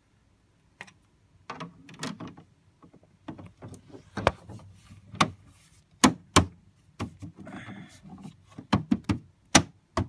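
Plastic casing and filter grille of a dehumidifier being handled: a string of sharp clicks and knocks, the loudest about halfway through and again near the end.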